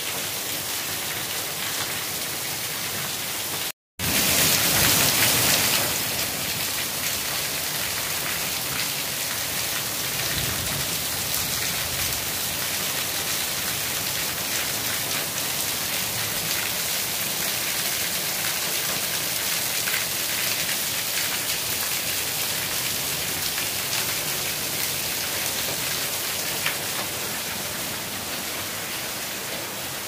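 Heavy rain falling on a roof, a dense, steady hiss of drops. About four seconds in the sound drops out completely for a moment, then comes back louder for a couple of seconds before settling.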